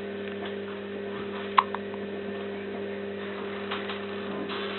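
A single sharp hiccup about a second and a half in, with a few faint clicks, over a steady electrical hum.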